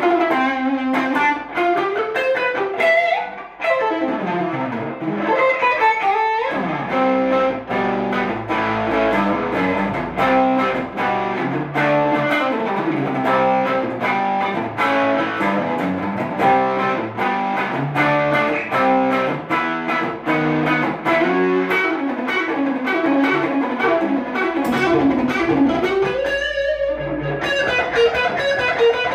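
Electric guitar played through an amplifier and effects pedal: a continuous flow of quick single-note runs, with short breaks about three and six seconds in.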